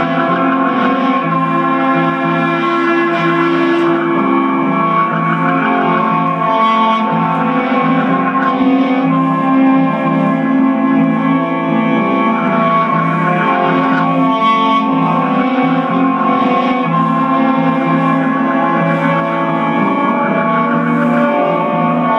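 Layered electric cello music through an amplifier with effects: sustained bowed notes over a repeating low line. The parts are loops playing back on their own while no one plays the instrument.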